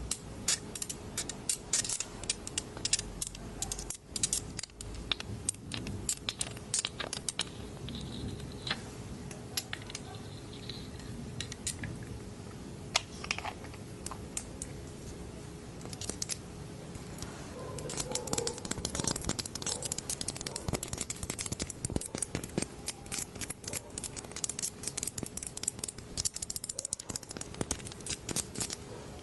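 Dropper handled for ASMR: many small crisp clicks and taps in quick, irregular succession, thickest in the second half, over a faint steady hum.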